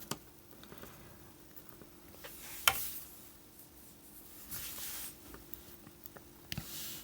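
Small electronic components being handled and set onto a circuit board on a workbench: scattered light clicks, one sharper about two-thirds of the way in, and a few soft scrapes, over a faint steady hum.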